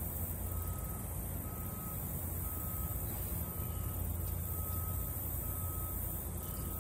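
A vehicle's reversing alarm beeping steadily about once a second, over a steady low rumble.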